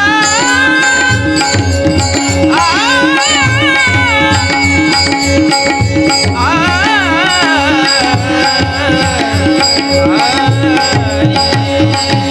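Marathi devotional abhang music: an ornamented, wavering melodic line in three phrases over a fast hand-drum rhythm and a steady drone, with no words sung.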